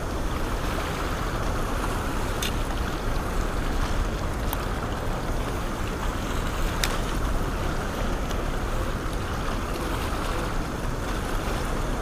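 Steady rush of whitewater pouring out of an open dam's gates and churning over rocks close by, a deep even roar with a few faint ticks.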